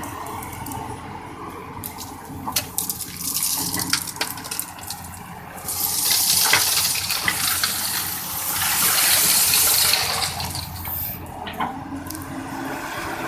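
CAT 320D excavator's diesel engine running under a clatter of rock, then a loud rushing pour of split stone from the bucket for about four seconds in the middle, the stones clattering as they land.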